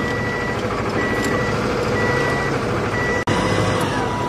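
An electronic warning beeper, like a vehicle's backup alarm, sounding about once a second with half-second beeps, over a steady mechanical drone. The sound drops out for an instant about three seconds in.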